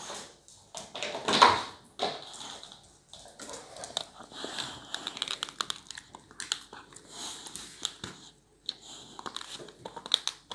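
Boxer dog gnawing on a hard chew bone held in a person's hand: many quick, irregular clicks and scrapes of teeth on the bone. About a second and a half in there is one loud, breathy snort.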